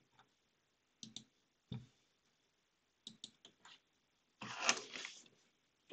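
Faint, scattered clicks of a computer mouse and keyboard: a couple of sharp clicks about a second in and a quick run of them around three seconds in. Near the end comes a short noisy rustle of about a second.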